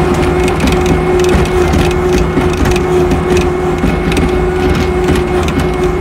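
Skid steer loader running as it spins round on snowy ground, the machine's steady whine over constant rattling and crunching.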